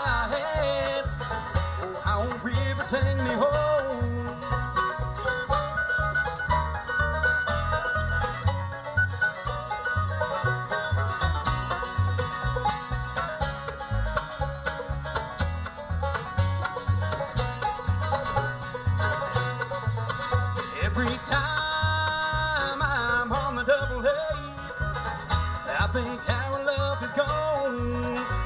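Live bluegrass band playing an instrumental break on five-string banjo, acoustic guitars, mandolin and upright bass, the bass plucking a steady beat under the picked melody.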